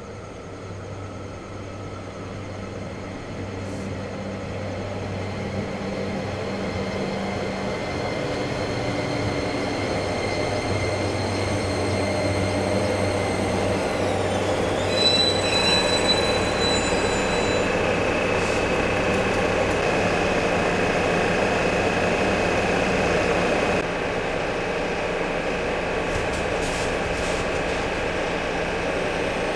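JR Kyushu YC1 series hybrid diesel railcar with Hitachi VVVF inverter drives, arriving: its running noise grows steadily louder, and about halfway through a high inverter whine glides down in pitch as the train slows. Steady high tones then hold for several seconds.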